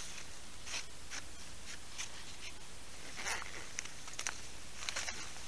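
Hands rummaging in a nylon backpack and handling gear: scattered rustles and small clicks, with a longer rustle a little past three seconds in and a run of small ticks near the end.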